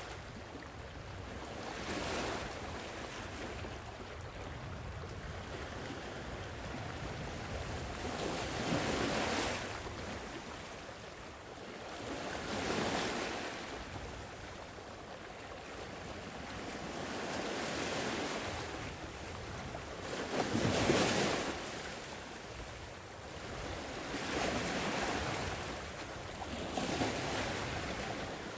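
Gentle sea waves washing in, each surge swelling and fading every few seconds over a steady low rush, with one louder wave about two thirds of the way through.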